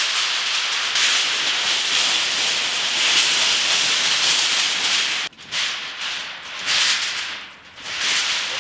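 Large sheet of aluminium foil crinkling as it is handled and spread over a cooking pit, a dense rustle that stops abruptly about five seconds in and then comes back in a few shorter bursts.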